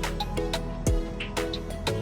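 Background music: an electronic track with a deep kick drum that drops in pitch on each hit, ticking hi-hats, and held synth chords.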